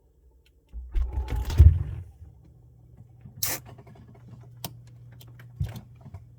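Samsung Bespoke refrigerator noise: about a second in, a brief loud rumbling and knocking, then a steady low hum sets in, with a few sharp clicks over it.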